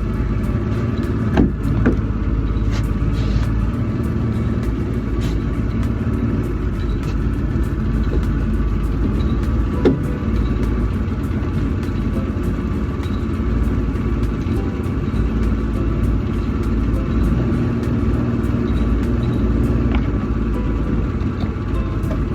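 A 1994 Mercury 90 hp two-stroke outboard running steadily, with a few brief knocks about one and a half, two and ten seconds in.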